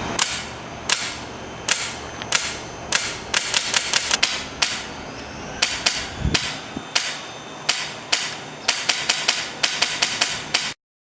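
HPA airsoft rifle with a Polar Star Fusion Engine firing: sharp single shots about a second apart, then quick strings of several shots, before the sound cuts off abruptly near the end.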